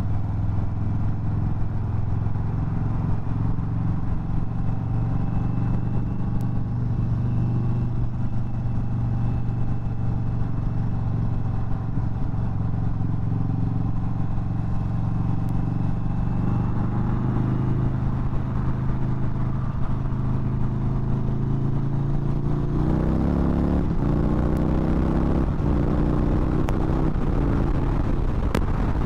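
Indian Chief Bobber's Thunderstroke 116 V-twin, still on its stock exhaust, running at a steady cruise on the highway. About 23 seconds in, the rider accelerates hard, and the engine note climbs steadily in pitch.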